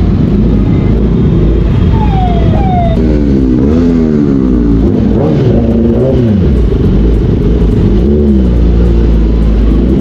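Kawasaki Ninja ZX-10R's inline-four engine in second gear at low speed, the throttle opened and closed repeatedly so the revs rise and fall several times.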